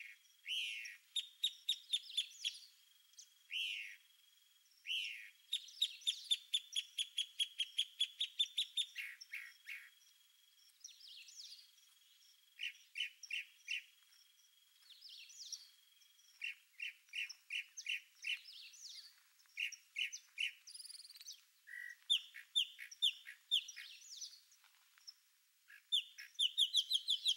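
Wild birds calling: fast runs of high chirps, spaced series of short notes and a few down-slurred whistles, with a thin steady whistle held between phrases.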